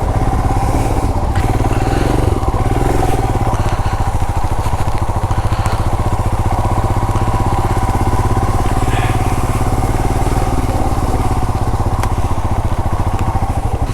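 Royal Enfield Himalayan BS6's single-cylinder engine running steadily while the motorcycle is ridden, its even thumping pulse constant throughout.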